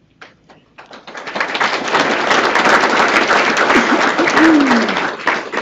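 Audience applauding. The clapping builds up about a second in and dies away near the end, with a brief falling voice sound in the middle.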